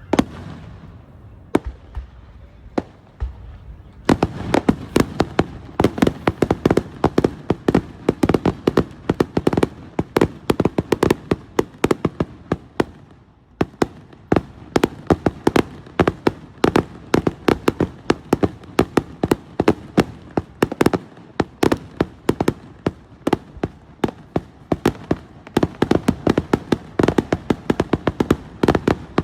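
Fireworks going off: a few separate bangs, then from about four seconds in a dense run of rapid sharp bangs and crackles, several a second, with a brief lull near the middle.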